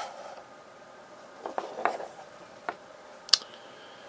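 Small black metal radio case handled during reassembly: a few faint scrapes and light ticks of its parts sliding and seating together, then one sharp click a little over three seconds in.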